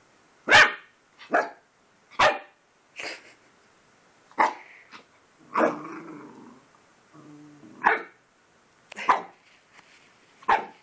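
Puppy barking at its own reflection in a mirror: about eight short, sharp barks roughly a second apart, with a couple of longer, lower growls in the middle.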